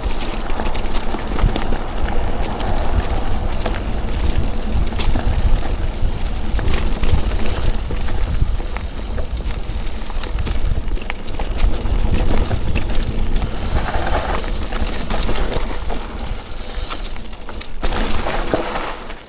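Mountain bike descending a dirt trail: heavy wind rumble on an action-camera microphone, tyres rolling over dirt, and frequent clicks and rattles from the bike.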